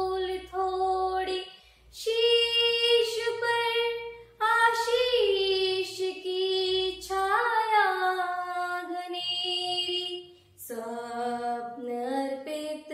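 A girl singing a Hindi patriotic song solo with no accompaniment. She holds long notes with slides between them and takes short breaths about one and a half, four and ten seconds in.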